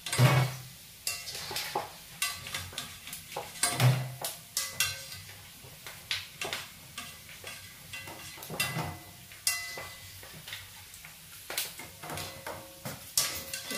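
Metal ladle scraping and knocking against a stainless-steel wok as fried pork belly pieces are lifted out of the oil, in irregular clinks with a couple of louder knocks, over the light sizzle of the frying oil.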